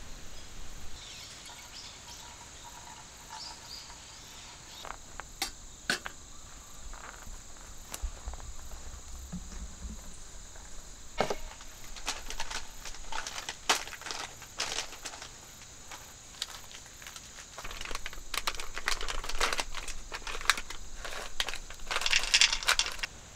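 Outdoor ambience of insects chirring steadily, with irregular crunching and rustling noises, like movement on dry ground or gear being handled. The rustling starts a few seconds in and is busiest near the end.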